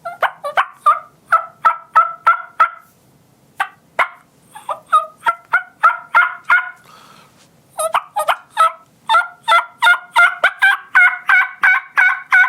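Hen turkey calls made on a diaphragm mouth call: quick runs of yelping notes, about three or four a second, broken up by a pause and a couple of sharp single notes a few seconds in, then a long unbroken run to the end.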